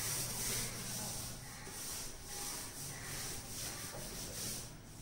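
A whiteboard duster rubbing across a whiteboard in quick back-and-forth wiping strokes as the board is erased. The strokes stop near the end.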